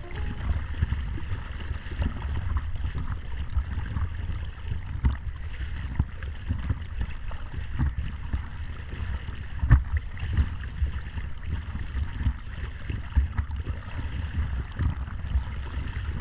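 Water sloshing and lapping against a stand-up paddleboard as it is paddled through choppy sea, with a steady low rumble of wind on the board-mounted camera's microphone and scattered short splashes.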